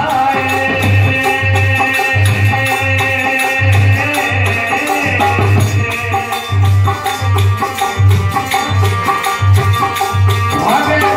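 Instrumental passage of a devotional song: a harmonium holding sustained chords over a steady dholak rhythm with regular deep bass strokes, and a jingling hand percussion keeping fast time.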